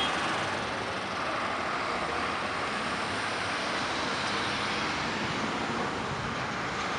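Street traffic: an old Ford L8000 dump truck drives past towing a loaded equipment trailer, its engine running under a steady rush of engine and tyre noise from cars passing close by.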